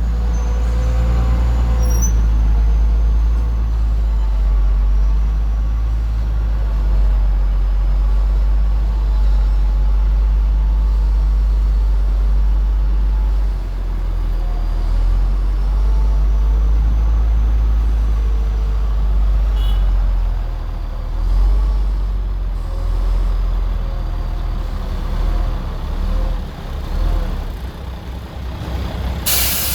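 Heavy diesel engine of construction machinery running with a steady low rumble. A short loud burst of hissing air comes near the end.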